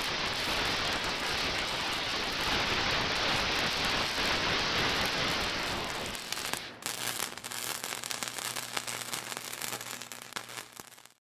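Electric arc welding sound: a steady, dense crackling sizzle. About six and a half seconds in it turns thinner and more sputtering over a steady low hum, then cuts off suddenly near the end.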